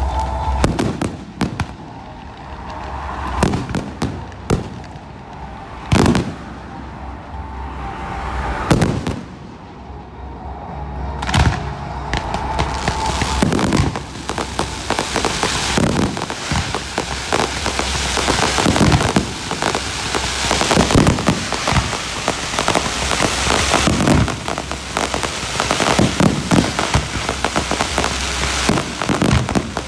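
Fireworks going off: several separate loud bangs a few seconds apart, then, from about halfway through, a dense, continuous crackle of many rapid small bursts.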